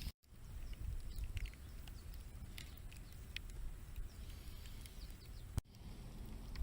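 Campfire crackling with scattered sharp pops over a low steady rumble. The sound cuts out briefly just after the start and again about a second before the end.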